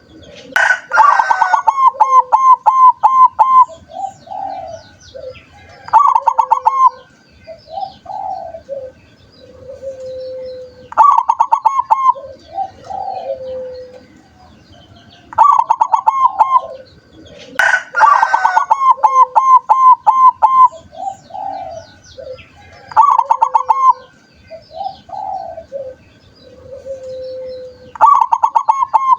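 Zebra doves (perkutut) cooing. Each phrase opens with a quick run of staccato notes and trails off into slower, lower coos. The phrases repeat every five or six seconds.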